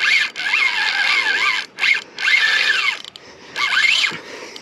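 Spinning reel's drag screaming as a hooked bull shark runs and strips line: a high whine that wavers up and down in pitch, cutting out briefly a few times as the shark pauses.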